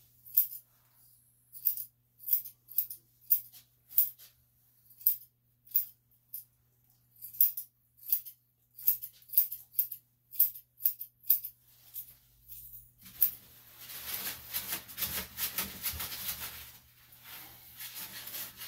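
Grooming scissors snipping hair on a Shih Tzu's face, about twenty short, crisp snips at an uneven pace. About two-thirds of the way in, a continuous rustling takes over.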